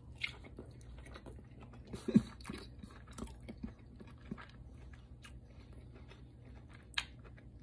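A person chewing a bite of oven-roasted, charred cauliflower: quiet crunching and mouth sounds, loudest about two seconds in.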